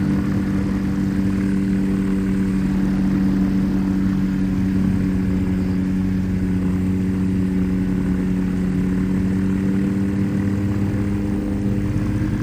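Rotax 582 two-stroke twin engine and two-blade Warp Drive propeller of a 1987 Spectrum Beaver RX 550 ultralight running at taxi power, holding a steady, even pitch.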